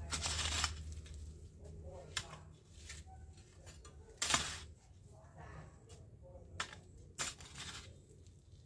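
A long-handled garden tool scraping and chopping at dry ground and grass in about five separate strokes, a second or two apart, the loudest near the start and about four seconds in.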